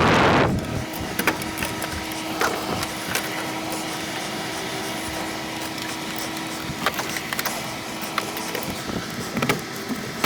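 A loud rushing noise stops about half a second in. After it comes a steady hum with scattered light clicks and knocks.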